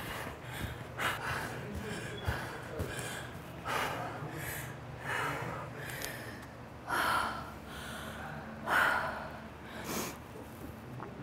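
A woman panting hard from intense exercise: quick gasping breaths with a few light foot taps on the rubber gym floor in the first seconds, then slower, louder heavy breaths in the second half.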